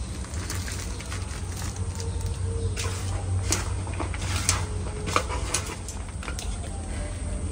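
Shredded pomelo peel boiling in a wide aluminium pan of water: irregular bubbling pops and clicks over a steady low rumble.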